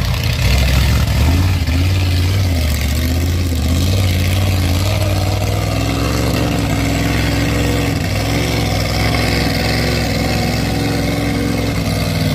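Lifted Ford pickup mud truck's engine revving hard under load as it drives through a mud pit, the pitch rising and falling with the throttle, with mud and water splashing from the tires.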